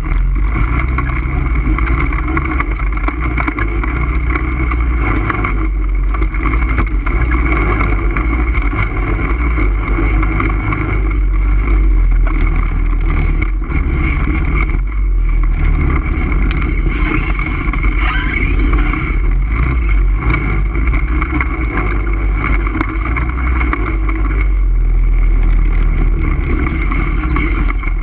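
ATV engine running steadily under way, with a heavy low rumble that holds its level throughout.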